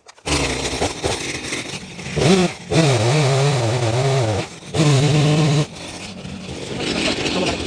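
Two-stroke chainsaw running at high revs, its pitch wavering and dipping as it works, with a rev-up about two seconds in and a few brief breaks.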